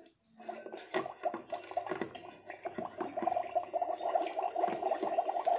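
Water bubbling and gurgling in a Magic Mixies toy cauldron as it is stirred: a rapid, irregular patter of small pops that grows louder through the second half.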